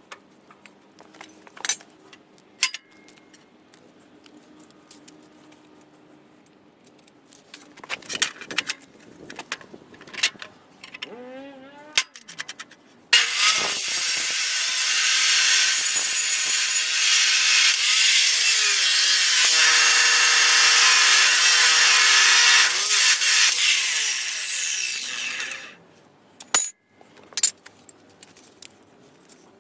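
A power saw cutting for about twelve seconds, starting a little before the middle and stopping near the end. Scattered knocks and clatter from handling tools and material come before and after.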